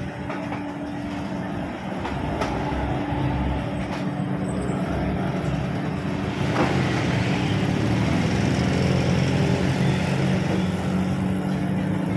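Busy street traffic: vehicle engines running close by over a steady background of road noise, growing louder from about halfway through.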